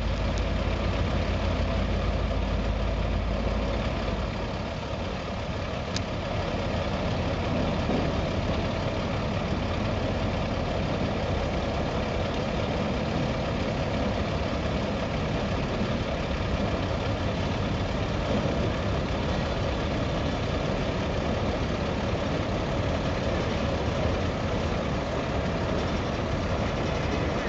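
Heavy diesel engine idling steadily, with a brief click about six seconds in.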